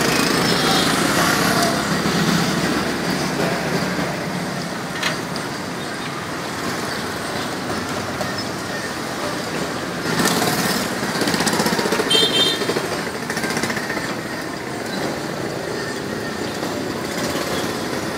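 Hot oil sizzling steadily as dough sticks deep-fry in a large wok, mixed with street traffic noise; a busier stretch comes about ten seconds in.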